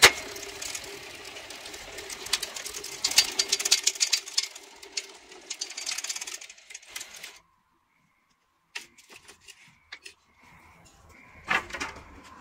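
Homemade electric pole-turning machine running: a steady motor hum under dense rattling and clicking, which stops about seven seconds in. After a short silence come scattered clicks and knocks over a faint steady tone.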